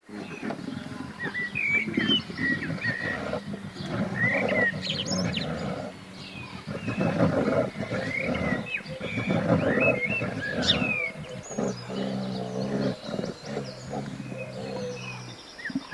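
Deep animal growls and roars, repeated in rough bursts, with a steadier drawn-out low growl about twelve seconds in. Birds chirp in the background.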